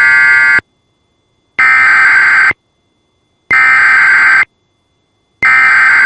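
Emergency Alert System SAME header: harsh, buzzing digital data bursts of about a second each, repeating about every two seconds, sent to open a Required Weekly Test.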